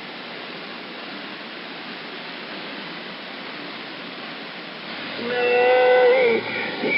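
CB radio receiver hiss on an open channel between transmissions. About five seconds in, a station keys up and a loud, steady horn-like tone comes through for about a second, followed by a brief garbled transmission.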